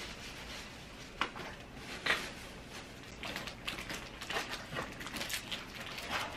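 Plastic-wrapped snack packages rustling and crinkling as they are handled and packed into an open suitcase, with two light knocks at about one and two seconds in and a busier run of small rustles near the end.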